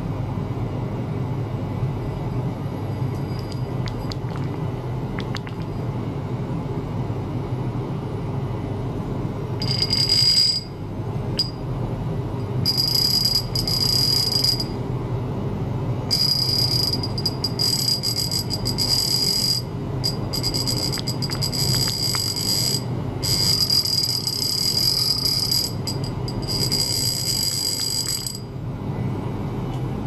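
Electric toothbrush running with its head in a glass of water: a high-pitched buzzing whine that starts about ten seconds in and runs in several stretches with short breaks, stopping near the end. A steady low hum lies underneath throughout.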